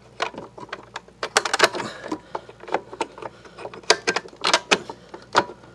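Belt cover of a Sanitaire SC899 commercial upright vacuum being fitted by hand, with irregular clicks, knocks and rattles as it is pushed and fiddled against the vacuum's base and fails to snap into place.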